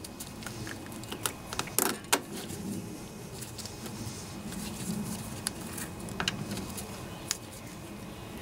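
Faint handling noise of gloved hands working a rubber fuel line off a lawnmower carburetor: a few scattered light clicks and scrapes over a steady low hum.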